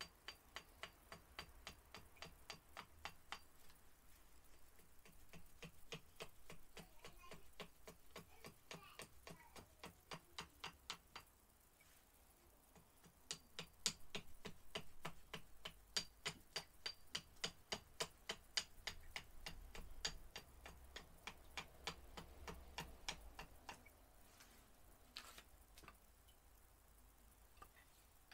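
Gränsfors Bruk Large Swedish Carving Axe taking short chopping strokes on a split cherry spoon blank: a rapid run of sharp ticks at about three or four a second, with a break of a couple of seconds a little before halfway, thinning out near the end.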